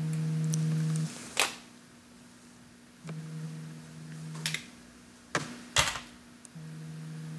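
A low buzz sounds three times, each about a second and a half long, over a faint steady hum. Between the buzzes come a few sharp clicks and cracks as blue crab shells are broken apart by hand over a steel bowl.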